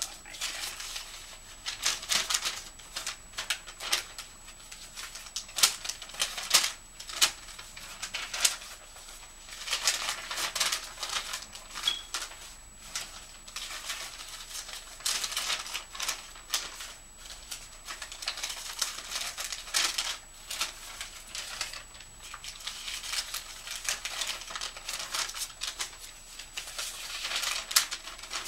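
Sheets of paper, letters and envelopes rustling and crackling as they are picked up, flipped through and sorted by hand, in short irregular bursts.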